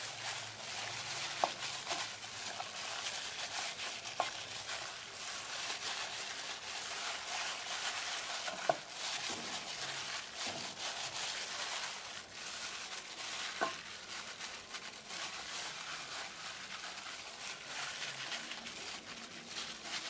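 Hands in plastic gloves rubbing a wet chili paste marinade into a whole snakehead fish in a stainless steel pot: steady wet rubbing and glove rustle, with four light clinks against the pot.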